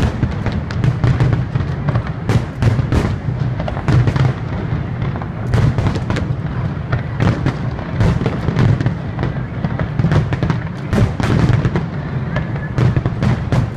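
Big aerial fireworks display: many shells bursting in quick, irregular succession, with sharp bangs and crackle over a continuous low rumble.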